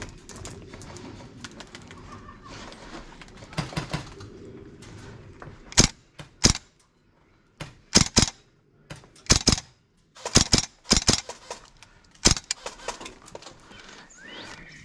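Airsoft guns firing: about a dozen sharp cracks, some single and some in quick pairs, starting about six seconds in.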